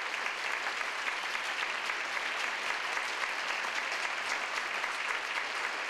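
Large audience applauding steadily, a dense mass of many hands clapping.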